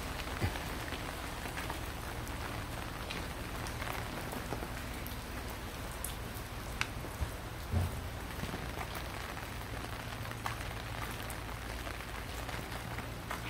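Steady rain falling, with scattered single drops ticking close by and two brief knocks about seven seconds in.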